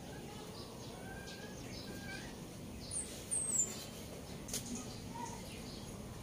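Birds chirping in short, high, falling notes, a few in quick succession about three seconds in. A single light click comes about a second later.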